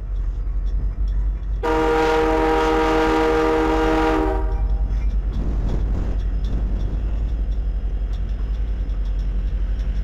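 Canadian Pacific diesel locomotive's air horn sounding one long chord of several notes for about three seconds, starting about a second and a half in, over the steady low rumble of the locomotives moving past.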